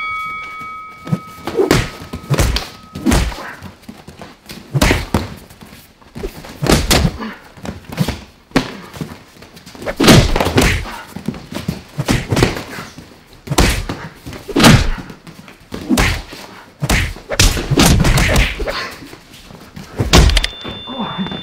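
Repeated dull thuds of punches and kicks landing during kickboxing sparring: boxing gloves striking gloves, guards and bodies, plus shin-guarded kicks, coming in irregular flurries.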